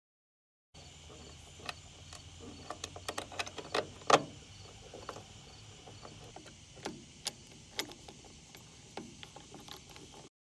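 Irregular metal clicks and knocks from an aluminium mounting track being handled and screwed down on an aluminium jon boat with a hex key. The loudest knock comes about four seconds in, over faint steady background noise. The sound starts about a second in and cuts off just before the end.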